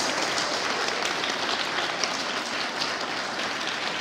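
Audience of parents applauding: many hands clapping at once, steady throughout.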